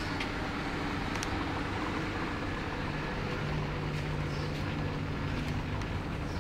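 Steady low machinery hum from a woodworking factory, with a few faint clicks.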